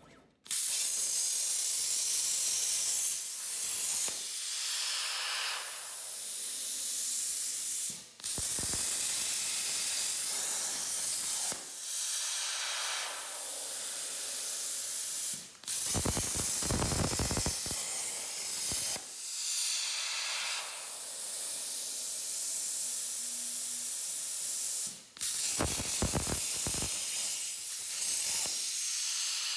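Hypertherm Powermax 45 plasma torch on a CNC table cutting steel plate: the arc fires about half a second in and runs as a steady hiss of arc and air. The hiss cuts out for a moment three times and restarts.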